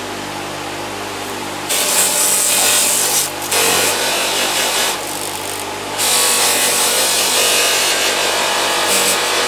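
Sealey bench polisher running with a steady motor hum, while work is pressed against its spinning stitched cotton buffing wheel three times, each a loud hissing rub lasting a second or a few seconds.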